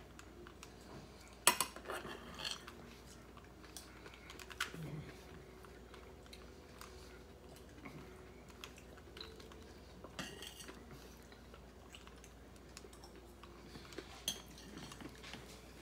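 Plastic Rubik's cube being twisted by hand: scattered clicks and clacks as the layers are turned, the sharpest about a second and a half in and others at irregular moments.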